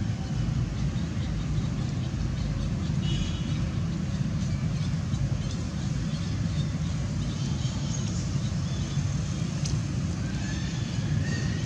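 Steady low outdoor background rumble, with a few faint high chirps about three seconds in and a faint thin call near the end.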